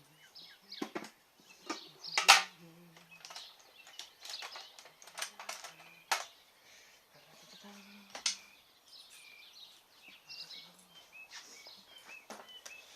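Hand tools clicking and knocking against a BMX bike's metal frame and chain guard as a bolt is worked on: a handful of sharp separate knocks, the loudest about two seconds in. Birds chirp in the background.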